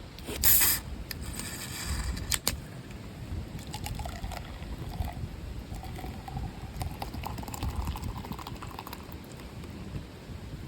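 A short clatter of camp cookware, then liquid poured into a container, with a faint tone that rises slowly as it fills.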